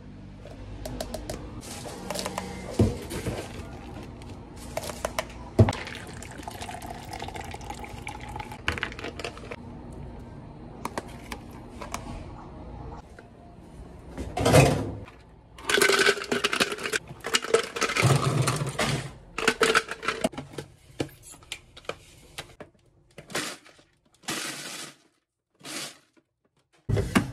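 Clatter of drink preparation at a milk tea counter: a spoon, a plastic cup and a plastic blender jar being handled, with sharp clicks and knocks. Near the end it comes in short cut-together bursts with brief silences between them.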